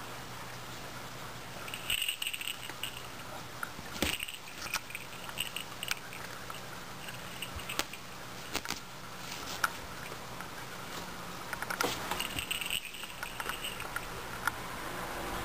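A cat playing with a small toy ball: scattered light clicks and brief rattling bursts, a few times over, as the ball is batted and carried.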